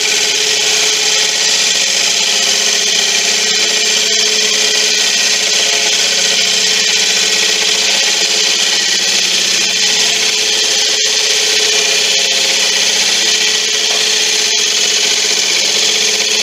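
Laguna 1836 wood lathe running with a gouge cutting the spinning monkey puzzle wood: a steady scraping hiss over the lathe motor's hum.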